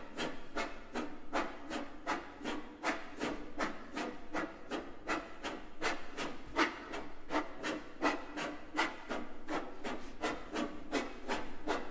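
Two violins lying flat, their wooden bodies rubbed by hand in quick, even, noisy strokes, about four a second, an extended playing technique rather than bowed notes.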